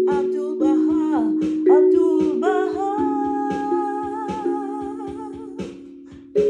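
Handpan struck with mallets, its notes ringing and overlapping as they fade, under a wordless sung melody that glides between notes and then holds one long note. A louder new strike comes near the end.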